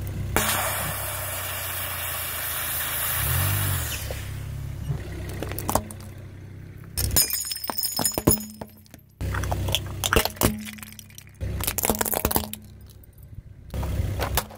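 An aerosol spray can bursts under a car tyre and vents with a loud hiss for about three and a half seconds, over the car engine's low running. Then come short clips of small objects cracking and crunching as the tyre rolls over them on gravel-topped asphalt, each clip starting suddenly.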